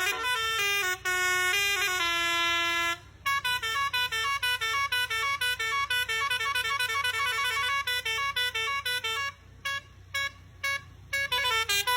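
Indonesian tour bus 'telolet' Basuri multi-tone air horn playing a tune. It opens with a few held notes that step in pitch, then runs quickly through many short notes with brief breaks, and ends on held notes again.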